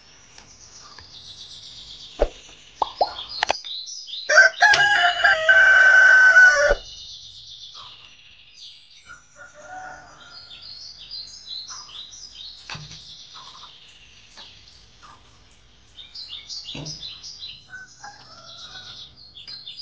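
A rooster crows once, one long crow starting about four and a half seconds in, over small birds chirping throughout. A few light clinks, a spoon on a plate, come just before the crow.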